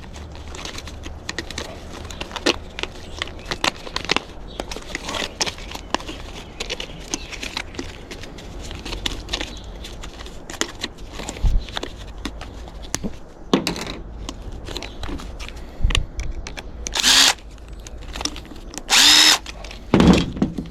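Power drill run in short bursts to back out screws, with clicks and knocks of metal parts being handled in between. Two longer drill runs come near the end.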